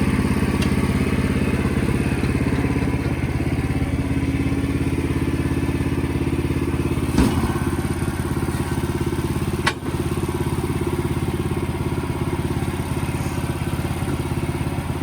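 Engine running steadily at a constant speed, with a thud about seven seconds in and a short sharp knock near ten seconds.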